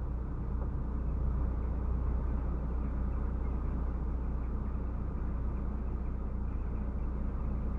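Steady low drone inside a MAN TGX 470 truck cab while driving: the inline-six diesel engine and road noise heard through the cab.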